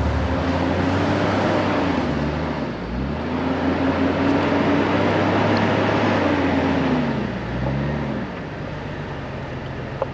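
Jeep engine on the move through deep snow ruts, its note rising and falling a few times and held high for several seconds in the middle, over a steady rushing noise; it eases off and quietens near the end.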